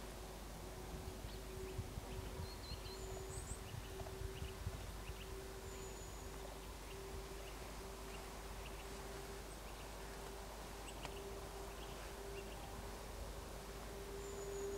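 Level crossing warning bell sounding a steady, slightly pulsing tone that warns of an approaching train, with small birds chirping.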